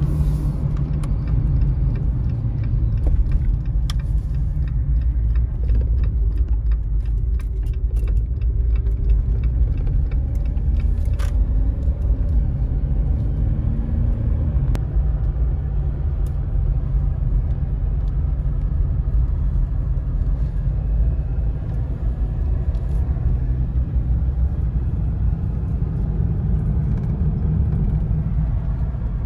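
Steady low rumble of road and engine noise heard from inside a moving car's cabin, with a few faint clicks.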